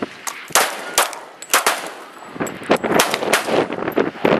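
Glock 27 subcompact .40 S&W pistol firing a string of shots, roughly two a second at a steady pace, each a sharp crack with a short ring after it.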